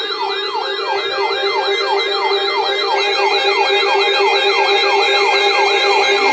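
Electronic weather-alert radio siren alarm going off for an incoming severe thunderstorm warning: a yelping tone that sweeps downward about three times a second, layered over a steady lower tone and a high wavering tone.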